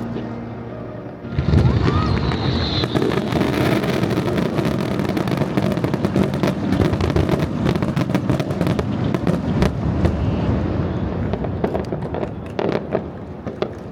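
Fireworks display in a dense barrage: a sudden heavy burst about a second in, then a continuous mass of bangs and crackling that thins out and dies away near the end.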